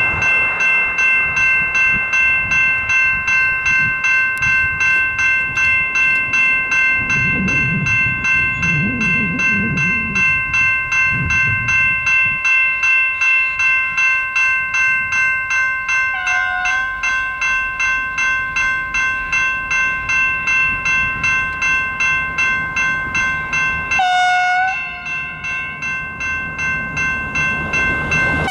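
Level crossing electronic bells (General Signals Type 2) ringing in a fast, even rhythm. A train horn sounds a short blast about halfway through and a longer one near the end, and a low rumble is heard in the first half.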